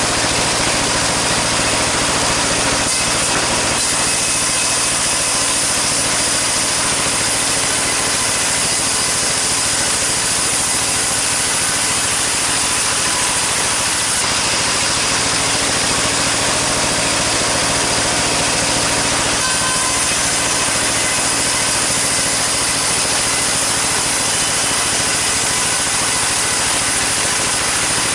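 A sawmill saw cutting through sengon timber without a break, its hiss steady over the hum of the engine that drives it.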